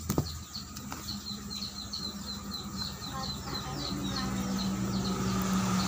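A bird chirping over and over, a few short high chirps a second, with a sharp click just after the start. A low steady hum comes in about four seconds in.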